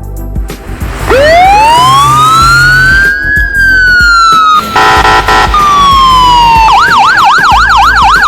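Emergency-vehicle siren: a wail that rises steeply and then falls slowly, a brief horn blast near the middle, then a fast yelp pattern near the end.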